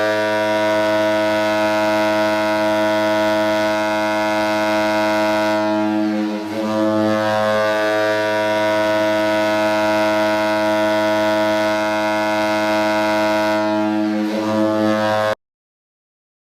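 Ice hockey arena goal horn blowing one long, steady, low, foghorn-like note. It wavers briefly about six seconds in and is cut off abruptly about a second before the end.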